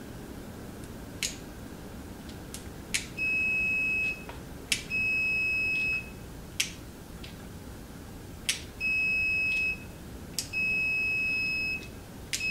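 Multimeter continuity beeper giving a steady high beep about a second long, four times, with a fifth starting at the very end, as the test probes close the circuit; sharp clicks come as the probe tips touch the terminals. The beeps show continuity through the starter switch: the switch is not the fault.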